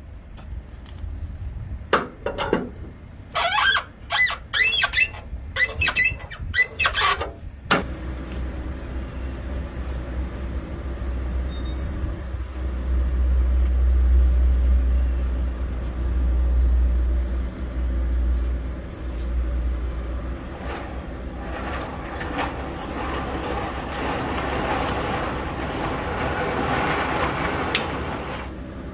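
A run of sharp squeaks and clicks, then a truck engine running with a steady low rumble from about a quarter of the way in. A hiss builds over the last third.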